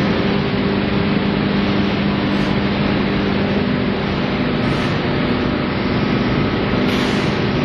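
A machine running steadily: a constant low hum with an even hiss over it.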